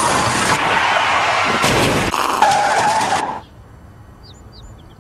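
A person dragged face-down along asphalt behind a moving SUV, giving a loud scraping road rush with a squeal near its end. It stops sharply a little over three seconds in, leaving it much quieter with a few faint high chirps.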